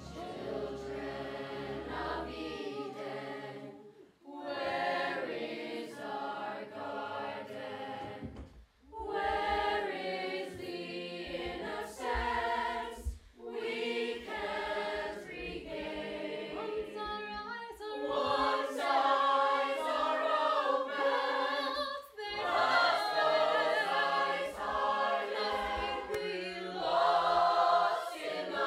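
Stage chorus of children and adults singing together in a musical number, in phrases broken by short pauses, growing louder in the last third.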